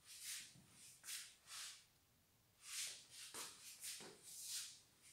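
Near silence with about seven faint, short hissy rustles spread through it.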